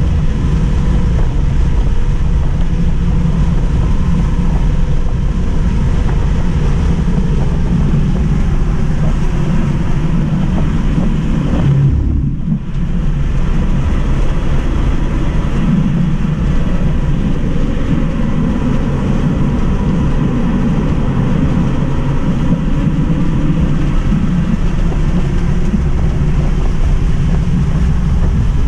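Steady road, tyre and wind roar inside the cabin of a Tesla Model 3 at track speed (about 65–95 mph), with a faint whine from its rear electric motor. The noise dips briefly about twelve seconds in.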